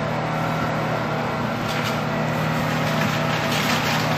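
Steady kitchen hum and hiss, with light scraping in the second half as a wooden spoon stirs risotto in a stainless steel pot.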